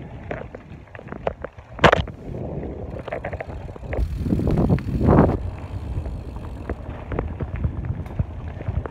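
Mountain bike rolling over a rocky dirt trail: tyres crunching, with scattered clicks and rattles and rumbling handling noise on a phone microphone. A sharp knock about two seconds in, and a louder rush of noise around four to five seconds.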